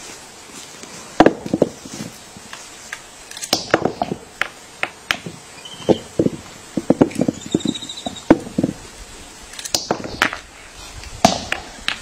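Capuchin monkey pounding with a hand-held stone against stones on a log: irregular sharp knocks, with a rapid run of them from about six to nine seconds in.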